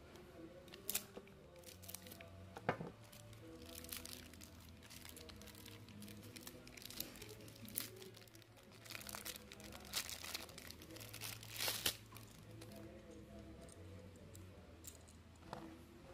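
Clear plastic packaging crinkling and tearing as it is cut open and handled, in scattered bursts with a few sharp crackles. Quiet background music plays underneath.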